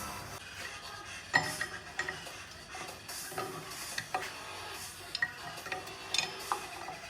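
Scattered light metallic clinks and taps at irregular intervals, the loudest about a second and a half in: small brake parts and tools being handled during a rear drum brake job.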